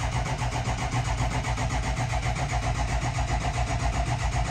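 Ford 6.0 Powerstroke V8 turbodiesel cranking on its starter in a fast, even rhythm without catching, its battery weak at about 7 volts.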